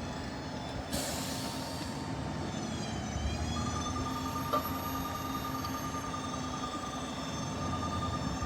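Heavy utility trucks and equipment running with a low engine drone, a brief hiss of air about a second in, and a steady high-pitched whine that starts a few seconds in.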